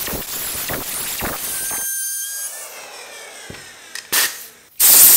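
Bosch plunge router cutting a slot in an MDF waste board, a loud crackling cut. About two seconds in it is switched off and its motor winds down with a slowly falling whine. Near the end a loud steady hiss starts.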